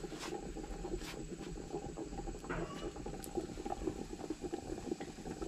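Firewood burning in a mud cooking stove, crackling with small irregular pops and clicks.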